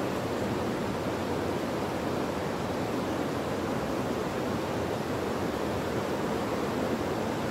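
Steady, unbroken rushing of water, like a swollen river in flood.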